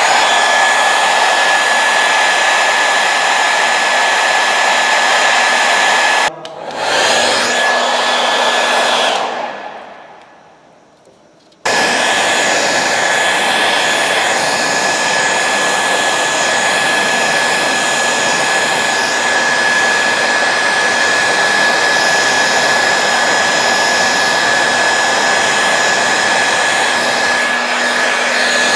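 Handheld hair dryer blowing hot air, a steady rushing noise with a thin high whine, used to warm a vinyl tank decal and soften its adhesive for peeling. It cuts out briefly about six seconds in, then winds down and stops between about nine and eleven seconds. It starts again abruptly near twelve seconds and runs steadily.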